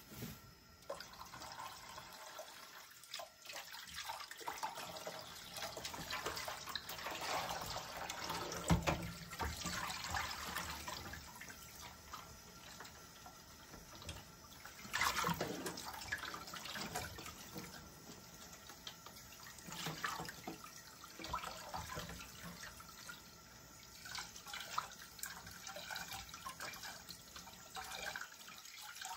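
Water running from a kitchen tap into a sink in uneven spells, louder and quieter by turns, with a few sharp knocks.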